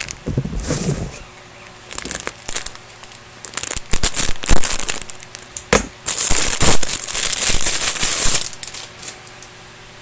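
Plush blanket being handled and unfolded, its fabric rustling and brushing against the phone's microphone in irregular crackling bursts, with a longer spell of rustling in the second half.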